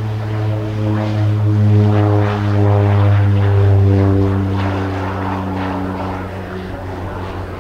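US Navy UC-12F (Beechcraft King Air B200) twin turboprop at takeoff power, its propellers giving a deep steady drone with overtones. The sound swells to a peak as it lifts off, then eases as it climbs away, its pitch falling slightly.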